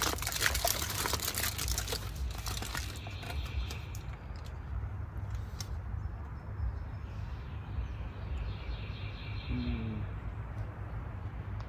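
Crinkling and rustling clicks for the first three seconds or so, then a low steady rumble of outdoor background sound, with a small bird giving short trilling calls twice.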